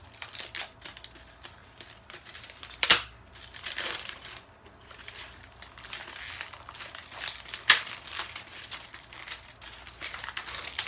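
Plastic packaging of a BB gun box crinkling and rustling as it is handled and opened. Two sharp snaps stand out, about three seconds and about eight seconds in.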